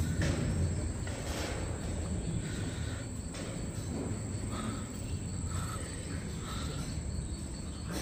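Insects buzzing in a steady high drone, over a low rumble, with a few faint short calls in the second half.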